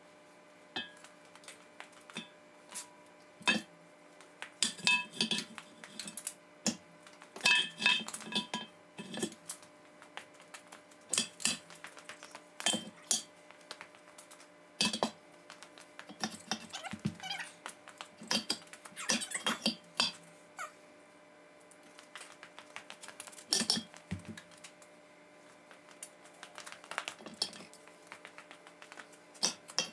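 Heavy steel trunnion stand of a Mack truck's camelback suspension being lowered from a hoist and worked down onto the leaf springs: irregular metal clanks and knocks, with a few short high-pitched squeaks mixed in.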